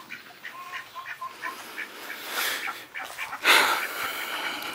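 A bird calling in short, quick notes, about three or four a second, followed by a brief, loud burst of noise about three and a half seconds in.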